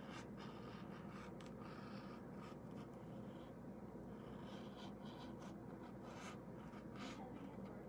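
Paint pen tip scratching over a painted door hanger in short, irregular strokes as an outline is drawn, faint over a low steady hum.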